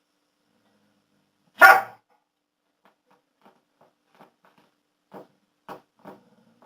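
A dog barks once, loud and short, then several much quieter short sounds follow over the next few seconds.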